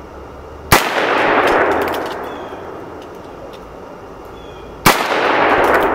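Two loud shots from a Heritage Rough Rider single-action .22 revolver firing .22 Magnum (CCI Maxi-Mag) rounds, about four seconds apart. Each crack is followed by a long rolling echo that fades over a second or two.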